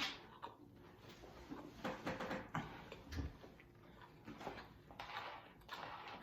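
A person chewing a mouthful of battered sweet and sour chicken: irregular wet mouth sounds, about two a second.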